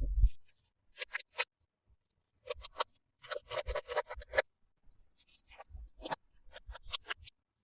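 Plastic toy packaging being handled and opened: bursts of sharp crinkling and crackling, densest a little past the middle, with a soft thump at the start.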